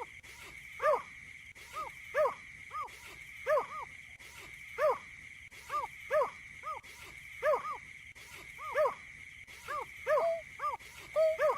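Wetland birds calling: a series of short, arched, hooting notes repeated every half-second to second or so. A steady high-pitched hum runs underneath.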